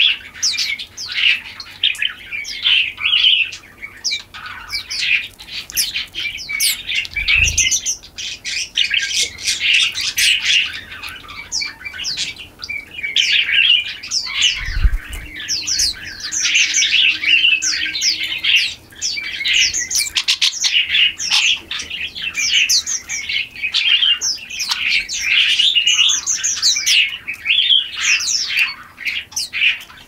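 A flock of small songbirds chirping and twittering at once, many quick overlapping calls without a break. There are two dull low thumps, one about seven seconds in and one about fifteen seconds in.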